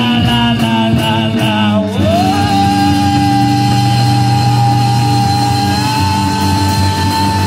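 Live rock band playing, with electric guitars and a drum kit. About two seconds in, one high note slides up and is held steadily over the band.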